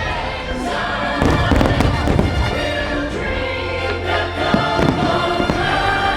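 Fireworks bursting and crackling over a loud orchestral show soundtrack with choir.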